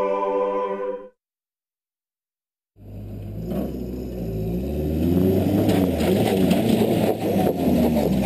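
A held musical chord cuts off about a second in, followed by silence. From near the three-second mark, a Toyota pickup's engine runs and revs up and down as the truck crawls over a rock ledge, with a few short clatters.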